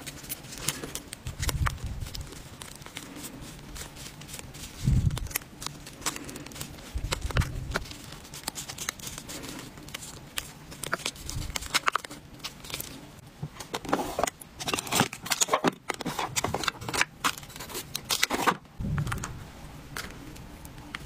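Stacks of small paper packets being shuffled and sorted by hand, rustling and crinkling with many light clicks. A few soft thumps come between them.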